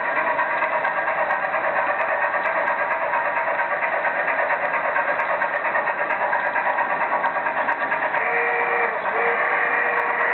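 Märklin model trains running on metal track: a steady whirring of motors and wheels with a fast, rattling flutter. About eight seconds in, a steady tone comes in, breaks off briefly and sounds again.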